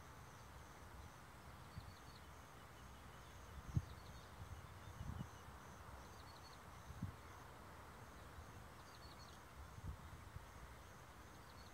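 Quiet outdoor ambience. An insect chirps in a steady run of short high pulses, and a bird gives a quick little group of high falling notes every few seconds over a faint distant hum. A few low thumps come through, the loudest about four seconds in.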